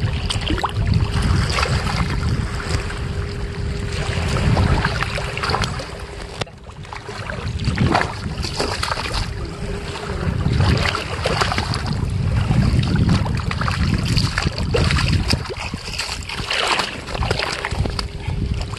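A hooked rohu thrashing and splashing in shallow water as it is landed by hand, with water sloshing around wading legs, in repeated short splashes. Wind buffets the microphone throughout.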